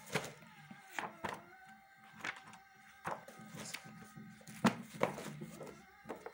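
Paperback textbooks being handled and flipped open, giving a string of short thuds and page rustles, several of them sharp. Faint background music runs underneath.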